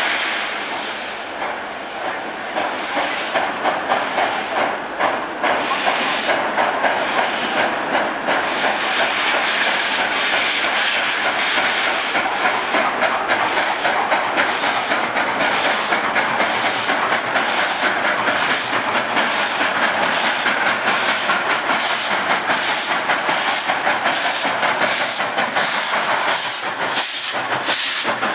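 Soviet class L steam locomotives pulling a passenger train away from a standstill: a constant hiss of steam under rhythmic exhaust chuffs that come faster as the train gathers speed.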